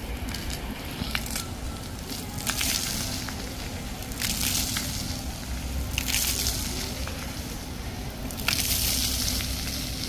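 Jets of a ground-level plaza fountain spraying in short hissing bursts, five or so in a row, roughly every one and a half to two seconds, over a steady low rumble.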